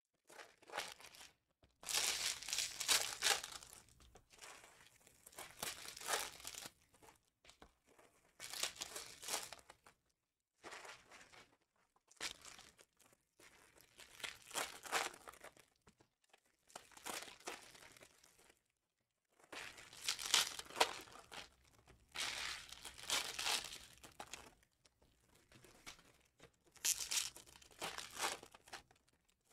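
Foil packs of 2021-22 Panini Prizm basketball cards being torn open, their wrappers crinkling, in over a dozen separate bursts with short pauses between them.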